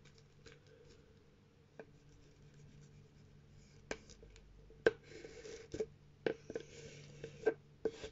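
Paper being handled and rubbed as glued paper is smoothed down on card. It is faint at first, then from about halfway there are several sharp taps and short stretches of rubbing and scratching.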